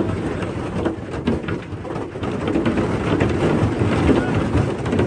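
Heavy rain beating on the windows and body of a passenger train carriage: a dense, steady roar with many irregular sharp hits running through it.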